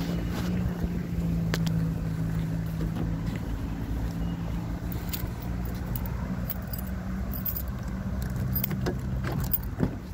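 A car engine idling with a steady hum, with scattered small clicks over it.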